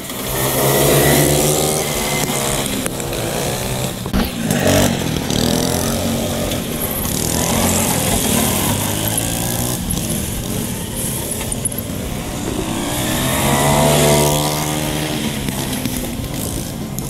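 Go-kart's small engine running as the kart laps the track, its pitch rising and falling with the throttle through the corners.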